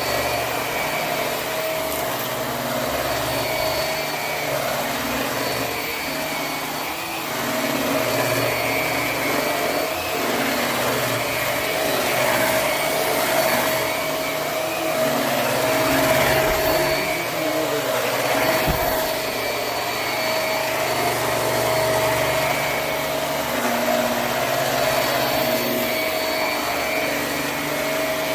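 Hoover High Performance Swivel upright vacuum running on carpet: a steady motor whine over airflow noise, its level rising and falling slightly.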